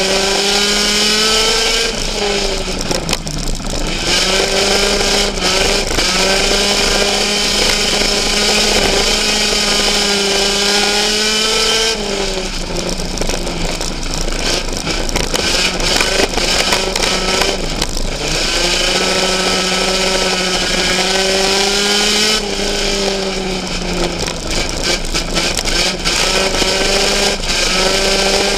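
Race car engine running hard, heard from inside the cockpit. Its note sags briefly four times and climbs back each time, as the driver lifts off the throttle for the turns and gets back on it.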